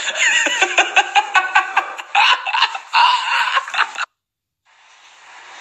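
Men laughing loudly in quick pulses while being squirted with a water pistol. The laughter cuts off abruptly about four seconds in, and a faint steady hiss follows.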